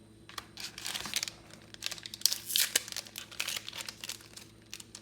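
Final Fantasy TCG Opus V booster pack wrapper crinkling and tearing as the pack is opened, in irregular crackles lasting about four seconds.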